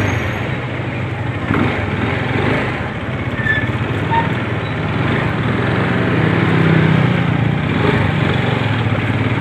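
Vehicle engine running under way, with steady road noise; the engine note grows louder for a couple of seconds about six seconds in.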